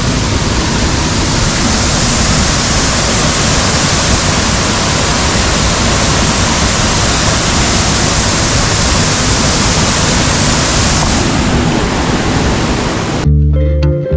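Waterfall, a loud, steady rush of falling water. It cuts off abruptly near the end, where plucked guitar music starts.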